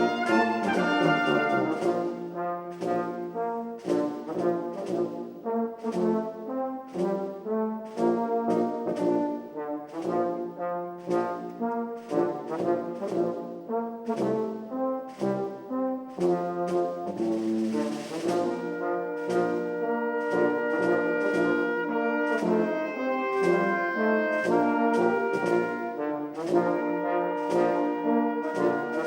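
A church orchestra plays an instrumental hymn arrangement, with brass prominent, in short repeated chords. A cymbal-like swell rises and cuts off about halfway through.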